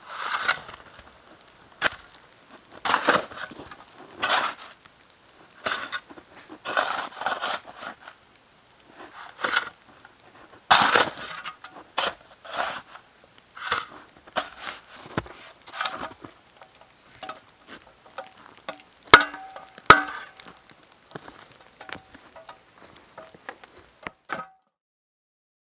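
A small shovel scooping snow and dirt and dumping it onto a smoking campfire to put it out: repeated crunching scrapes about once a second. Two sharp clinks a second apart, about nineteen seconds in, are the loudest sounds, and the sound cuts off suddenly near the end.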